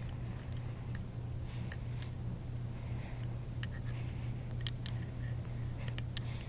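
Small dog being petted on a fabric couch: scattered small clicks and soft rustles as it moves and mouths at the hand, a few sharper clicks near the middle and the end, over a steady low hum.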